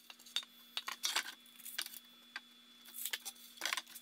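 Scattered knocks and clacks of a cedar fence picket being handled and slid into place against a miter saw's fence and table between cuts, about eight separate hits over a faint steady hum.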